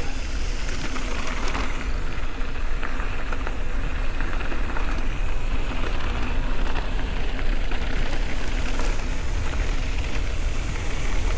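Mountain bike rolling along a dirt trail: a steady rushing noise of wind buffeting the microphone and tyres crackling over the ground, with scattered small rattles and knocks from the bike.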